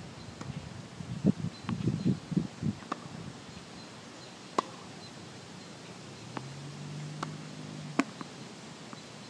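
Tennis balls struck by a racket and bouncing on a hard court: a few sharp pops a second or more apart, the clearest about four and a half and eight seconds in. Low uneven rumbles in the first three seconds are louder than the pops, and a low hum runs for a moment near the end.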